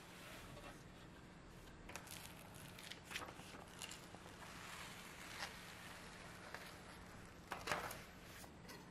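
Baking paper rustling and peeling away from a baked almond sponge sheet as it is handled, in a few short crinkly rustles, the loudest near the end.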